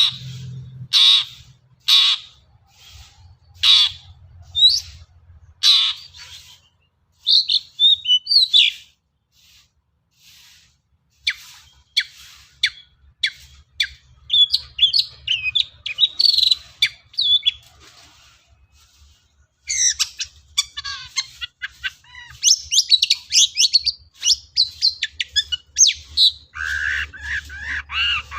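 Long-tailed shrike (cendet) singing. It starts with sharp, harsh single notes about once a second, then runs into rapid, varied chattering phrases broken by short pauses.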